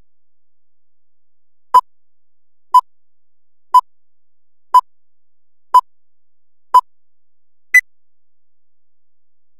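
Film countdown leader beeps: seven short electronic beeps one second apart, the first six at one pitch and the last one higher.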